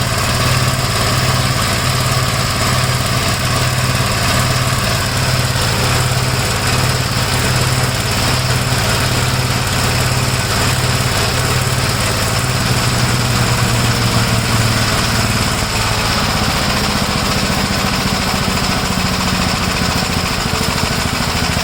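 1956 Gravely L tractor's single-cylinder engine running steadily with the brush hog blade being disengaged to check that it stops. A faint falling whine runs through the middle, and the engine note shifts about sixteen seconds in.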